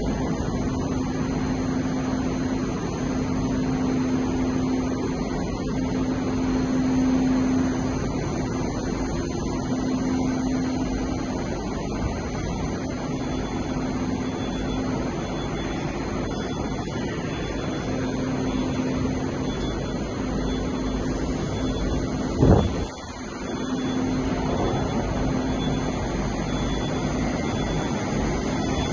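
Steady rumble and hum of a metro station platform with a train standing at it, doors open, and a faint hum that comes and goes. About two-thirds of the way through there is a single short, loud thump.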